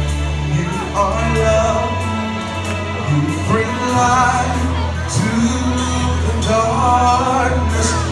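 Live worship music: a band playing held low notes and chords, with voices singing a slow worship song over it.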